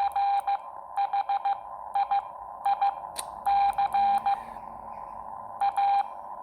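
Morse code sidetone from a Xiegu X6100 transceiver, keyed by hand on a Bencher BY-1 paddle: a steady beep broken into short dits and longer dahs, in letter groups with pauses between them. It spells out the word "Chicago" as a learner sends it, with a slip along the way.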